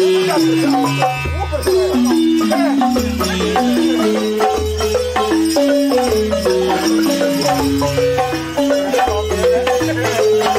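Balafon, a West African wooden xylophone with gourd resonators, played with mallets in quick running melodic patterns, with hand drums beating along underneath.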